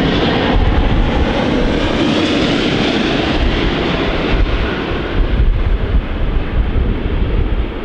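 Qantas Airbus A380 with Rolls-Royce Trent 900 turbofans passing low overhead on landing approach: a steady loud jet roar, with a faint high whine in the first few seconds and a rougher low rumble in the second half.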